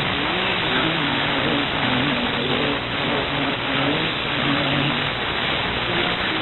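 Weak shortwave AM broadcast from SLBC on 11905 kHz, received on an SDRplay software-defined radio: a steady wash of static hiss with the top end cut off, and faint broadcast audio wavering underneath.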